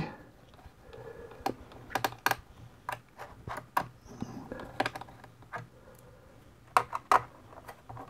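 Quiet, irregular clicks and ticks of a small screwdriver working the screws of a laptop's metal CPU heat shield, with a few sharper clicks about two seconds in and again near the end.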